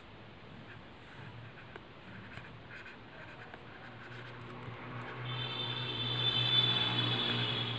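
Felt-tip sketch pen scratching across a laminated sheet in short writing strokes. From about four seconds in, a steady hum with a high whine swells up and becomes the loudest sound near the end.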